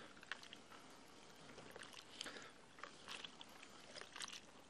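Faint, irregular splashing of water in a plastic bucket as hands wash sodden clay soil off a tree's root ball.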